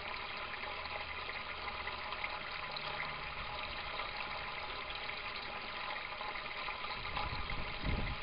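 Steady rush of water as a U-siphon keeps draining an aquaponics grow bed while the pump refills it, with a faint low hum. The siphon is running continuously instead of breaking and restarting: it has gone into equilibrium with the water level holding steady.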